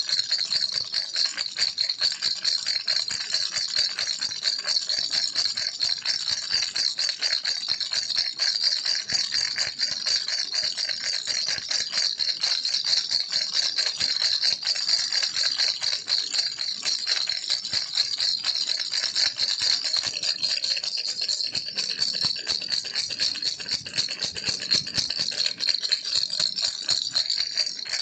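Baby's toy rattle shaken steadily and rapidly without a break: a dense, bright, high clatter of small beads.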